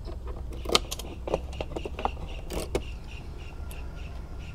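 Pillion seat of a Yamaha MT-25 being unlocked with the key and lifted off: a handful of sharp clicks and plastic knocks with a jingle of keys in the first three seconds.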